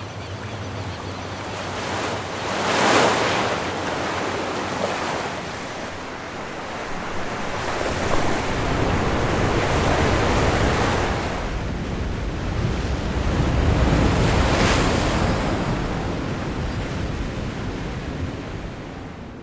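Ocean surf: waves breaking and washing ashore, a steady rush that swells louder several times as each wave comes in.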